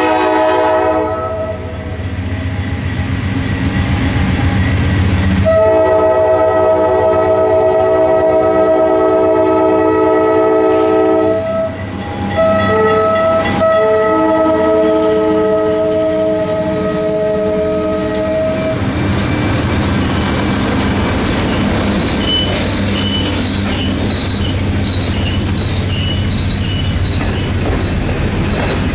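Freight locomotive's Nathan K5LA multi-chime air horn. The tail of one blast ends about a second in, then come a long blast, a short one and a long one, the grade-crossing pattern, as the GE C40-8 diesels close in. Once the horn stops, the passing diesel engines rumble and the covered hopper cars roll by with wheels clicking and squealing on the rails.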